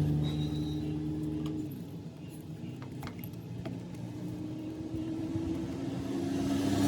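Honda 125 single-cylinder four-stroke motorcycle engine running: the revs drop back over the first couple of seconds, it ticks over quietly, then it is revved up again and grows louder near the end.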